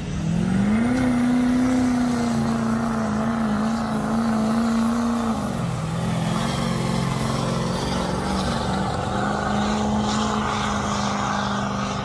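Engine of a pulling vehicle running hard under load. It revs up in the first second and holds a steady high pitch, drops briefly about five and a half seconds in, then settles at a steady pitch again.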